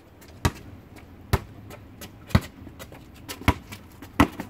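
A basketball dribbled on an asphalt driveway: about five sharp bounces, roughly one a second.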